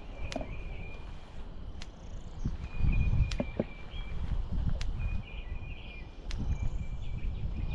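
Sharp ticks about every second and a half from the electric poultry netting's fence energizer pulsing, with gusts of wind rumbling on the microphone. A faint high trill comes and goes.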